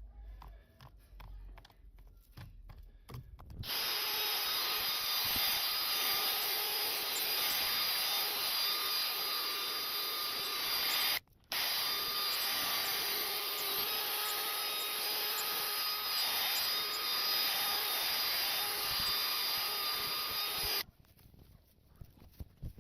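Power tool running steadily with a constant whine. It starts about four seconds in, cuts out briefly near the middle, and shuts off about two seconds before the end.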